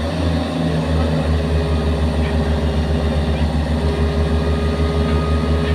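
Excavator's diesel engine running steadily with an even, rhythmic low throb.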